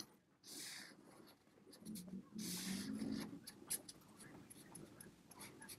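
Marker pen drawing on flip-chart paper: a few faint scratchy strokes, the longest about two to three seconds in, followed by light ticks as the pen touches down.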